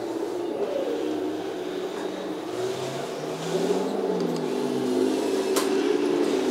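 Heng Long RC tanks' simulated engine sound from their on-board sound units, running steadily and revving up about halfway through as the tanks drive. A single sharp click comes near the end.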